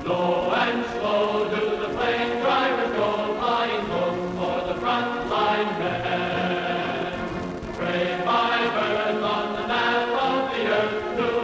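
Film score music with a choir singing sustained chords, on a narrow, old-sounding soundtrack.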